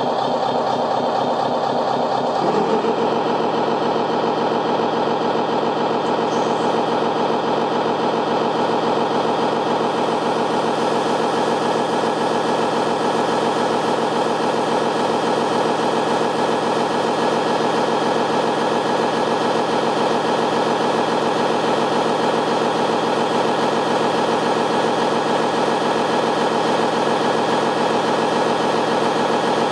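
RC model FLF Panther airport fire truck running its foam monitor: a steady motor drone that gets louder and fuller about two and a half seconds in, then holds.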